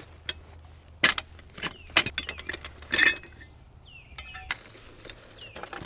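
Metal parts of a cant hook clinking and clicking as its attachment is handled and fitted, a handful of sharp, irregular clinks.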